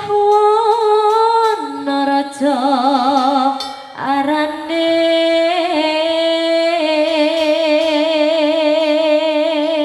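A solo voice singing long, slow held notes with wide vibrato, stepping down and up in pitch between phrases, in the style of Javanese wayang vocal music.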